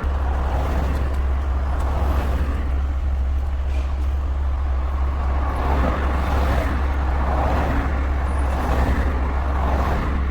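Street traffic: cars passing one after another, each swelling and fading, over a steady deep rumble.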